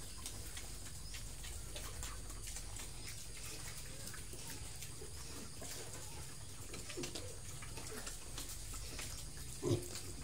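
Piglets eating from a concrete trough: chewing and snuffling with a few short, soft grunts, the loudest one near the end.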